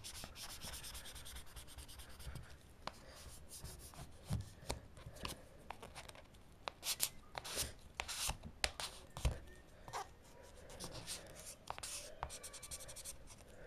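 Plastic squeegee card rubbing and scraping across a freshly applied screen protector on an iPod touch, pushing out air bubbles, with scattered light clicks and taps of the card on the device.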